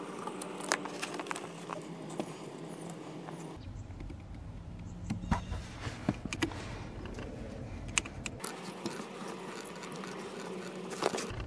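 Scattered small clicks and light metallic taps as small screws and nuts are fitted by hand to an aluminum pedal cover on a car's accelerator pedal.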